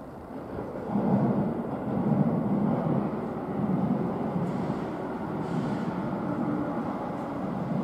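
Keihan 1000-series electric commuter train rolling into the station and slowing to stop, its wheels rumbling on the rails; the rumble swells about a second in and stays steady.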